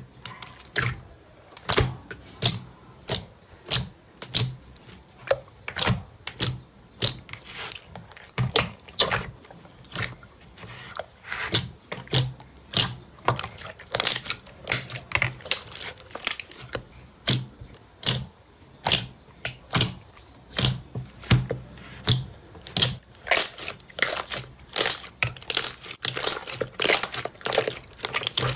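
Slime being squished and poked, giving sharp popping clicks about two or three times a second.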